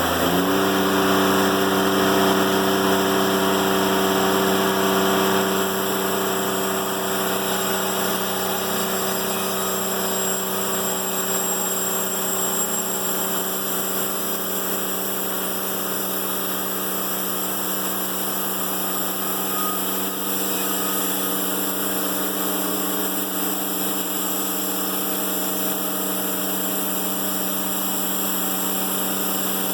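Timberking 1400 band sawmill's engine revs up from idle right at the start, then runs steady at high speed, driving the band blade.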